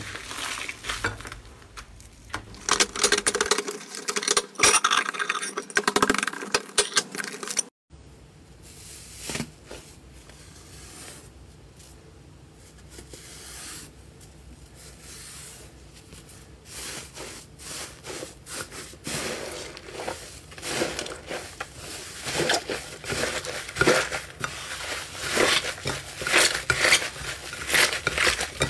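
Hands squishing and kneading foamy slime: many small sticky crackles, pops and squelches. A quieter stretch comes in the middle as a layer is lifted off a slime dome, and the squishing grows busier again near the end.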